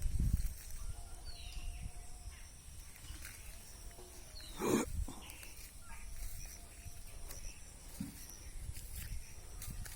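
A goat bleats once, briefly, about halfway through, over scattered small bird chirps.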